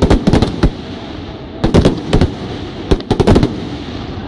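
Fireworks display: shells bursting in quick clusters of sharp bangs, three volleys about a second apart, with a steady background noise between them.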